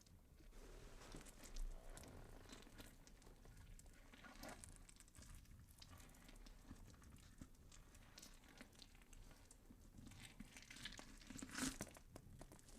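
Near silence with faint scattered clicks and rustling from handling, a soft knock about one and a half seconds in, and a short cluster of louder scrapes and clicks near the end.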